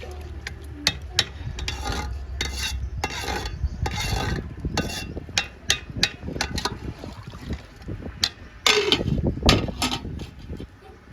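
A metal spoon stirring and scraping rice in a cooking pot, with repeated sharp knocks against the pot. A low rumble runs under the first half.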